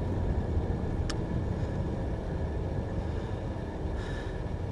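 Steady low rumble of road and engine noise inside a moving car, with one short click about a second in.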